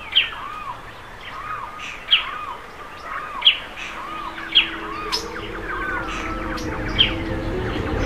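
Rainforest ambience of birds calling: a sharp, falling chirp about once a second, with a lower arched whistle between the chirps. Low, sustained music swells in during the second half.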